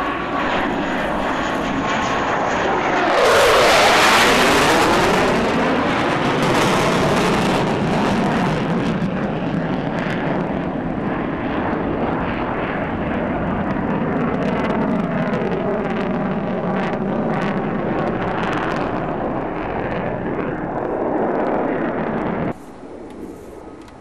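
F-15DJ fighter jet's twin turbofan engines passing overhead, loudest about four seconds in with a sweeping whoosh as it goes by. A long, steady jet rumble follows and drops off abruptly near the end.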